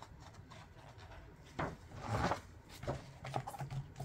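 A page of a large hardcover picture book turned by gloved hands: a handful of short paper rustles and rubs, loudest about halfway through.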